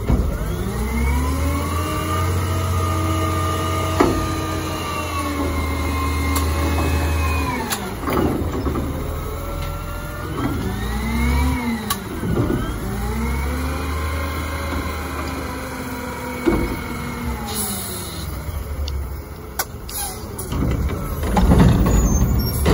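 Natural-gas front-loader garbage truck revving its engine to drive the hydraulics as the forks lift the carry can over the cab and lower it again. The engine pitch rises, holds and falls several times, with a few sharp metal knocks and a louder clatter near the end.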